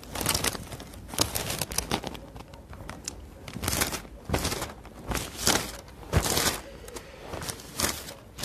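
Bible pages being turned and leafed through: a string of short, irregular paper rustles and flicks.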